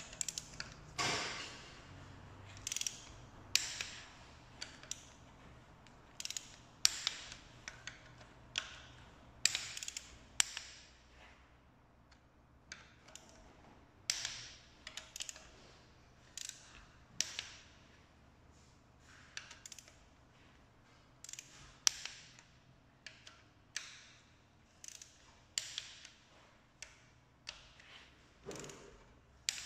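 Torque wrench clicking in short, irregular runs of sharp clicks with pauses between them, as the cylinder head bolts of a VW 1.8 TSI engine are tightened to 40 Nm, the first stage of head-bolt tightening.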